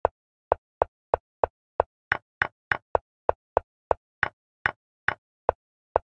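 Chess move sound effects from an animated board replaying a game, a sharp wooden click for each move at about three a second. A few of the clicks are brighter and slightly longer than the rest.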